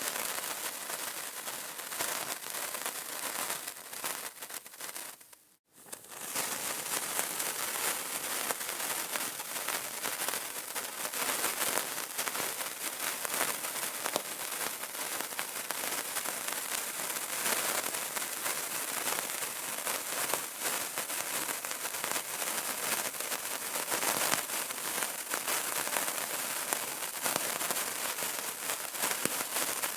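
Burning candle crackling: a dense, steady run of small pops and crackles. It fades out briefly about five seconds in and comes straight back.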